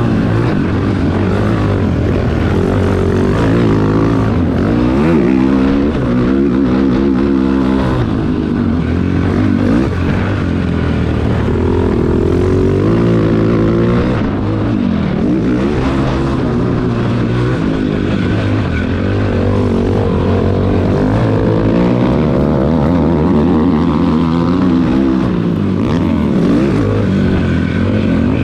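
Cannondale ATV's four-stroke single-cylinder engine being ridden hard under throttle, its pitch rising and falling again and again as the rider opens and closes the throttle.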